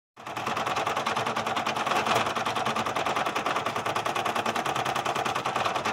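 Brother PE770 embroidery machine stitching, its needle running in a fast, even rattle of strokes. It starts abruptly from silence just after the beginning.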